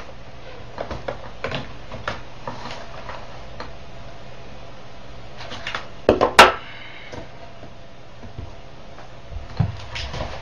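Scattered light knocks and clicks of a tool and the robot's hands being handled on a wooden plank, with a cluster of sharp knocks about six seconds in, the last one loudest and ringing briefly, over a low steady hum.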